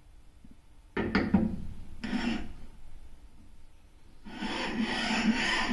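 A steel bar rubbed back and forth on a flat abrasive stone, a dry rasping scrape, lapping the machined face to show its high and low spots. A couple of short strokes come in the first half, and a steady run of scraping starts about four seconds in.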